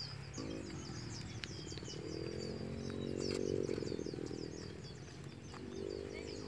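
Rapid, continuous chirping of small birds over a rural outdoor background, with a low hum that swells about halfway through and fades, returning faintly near the end.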